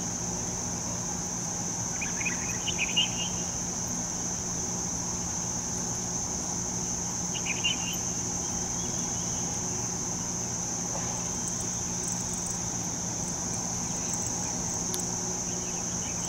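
Crickets trilling in one steady, unbroken high note over a steady low hum. A few short high chirps come about two seconds in and again near eight seconds.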